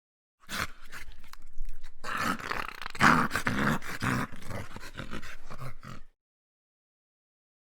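A dog growling and vocalising in a scuffle, in an irregular run of noisy growls that starts about half a second in and cuts off suddenly near the six-second mark.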